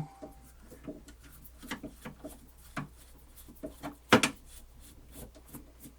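Screwdriver undoing the side screws of a cassette deck's metal cover: faint scattered clicks and scrapes, with a sharper click about four seconds in.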